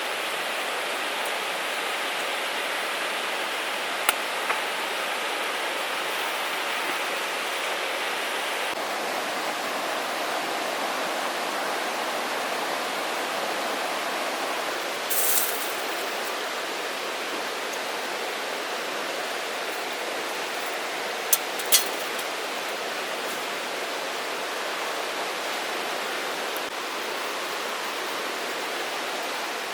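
Steady rushing noise, with two pairs of sharp clicks about half a second apart, one pair about 4 seconds in and one about 21 seconds in, and a short high hiss in the middle.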